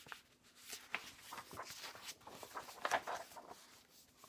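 Paper rustling and crinkling as the large pages of a picture book are turned and handled, loudest about three seconds in.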